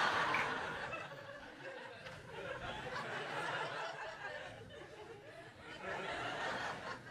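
Audience laughing, loudest at the start, easing off through the middle and rising again near the end.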